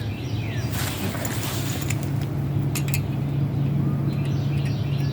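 A steady low hum, stronger from about two seconds in, with a few light clicks from handling engine parts and faint bird chirps.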